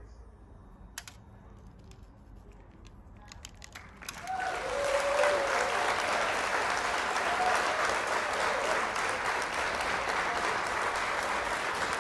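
Applause with a few faint cheering voices, starting suddenly about four seconds in after a quiet stretch with a few light clicks.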